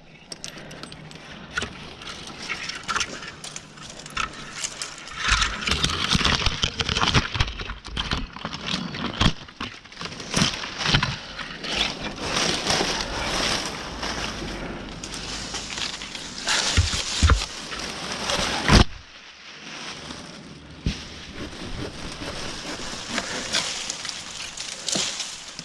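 Leaves and twigs rustling, crackling and snapping as an arborist climbs and works among oak branches, with scattered knocks. One sharp, loud knock comes about three quarters of the way through.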